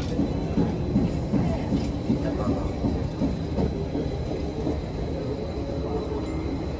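Athens Metro Line 1 train running along the track, heard from inside the car: a steady rumble of wheels and running gear.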